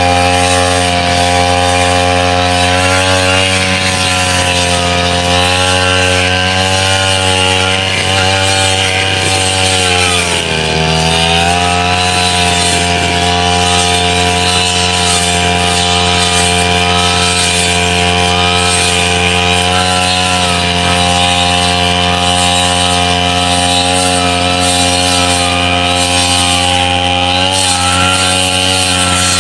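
Backpack brush cutter engine running steadily at high revs while it cuts tall wet grass. Its pitch drops briefly about ten seconds in, then comes back up.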